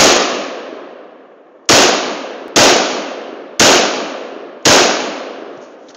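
Five Sig 556 rifle shots, the first right at the start and the next four about a second apart. Each shot fades out in a long echo.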